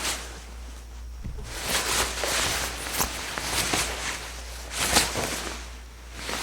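A wet bedsheet being handled and hung: damp fabric rustling and slapping in a series of short flaps, the sharpest a little before five seconds in.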